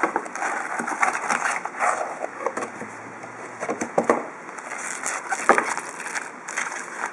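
Cardboard trading card hobby box handled and its foil-wrapped card packs pulled out and stacked: crinkling foil with irregular knocks and scrapes of cardboard.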